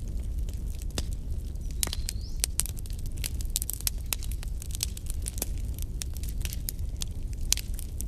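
Wood fire crackling: irregular sharp pops and snaps, several a second, over a low steady rumble.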